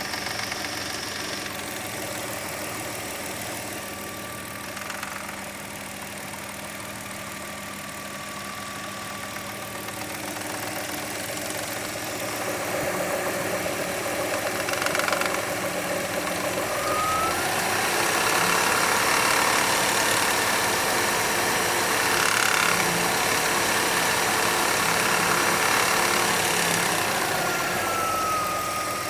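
2003 Hyundai Tiburon engine running at idle with a rattle from the timing belt area that comes and goes, which the owner suspects is a failing timing belt tensioner or the belt itself. It grows louder partway through, with a couple of short rising whines.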